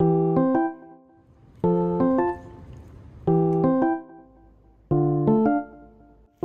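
Background music: a short keyboard figure of a few notes stepping upward, played four times about every second and a half.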